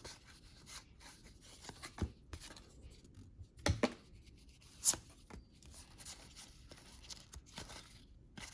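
Trading cards being handled by hand: faint rustling and sliding of card stock, with a few short sharp taps or snaps spread through.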